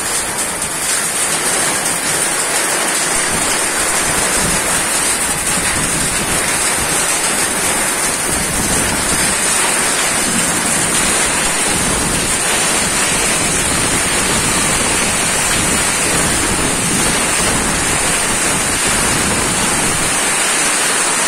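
Heavy rain pouring steadily onto flooded ground, with strong gusting wind. The low rumble of the wind grows from about a third of the way in.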